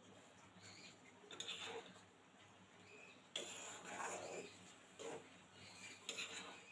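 Flat metal spatula stirring taro stolons in a thick coconut-milk and mustard gravy in a kadai, scraping and knocking against the pan in several short strokes, the loudest a little over three seconds in.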